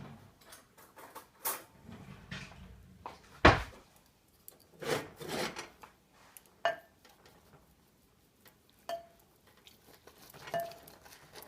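Cutlery knocking and scraping against a ceramic Rockcrok Dutch oven while a piece is cut off a roast chicken: scattered knocks, one sharp loud knock about three and a half seconds in, and a few brief ringing clinks later.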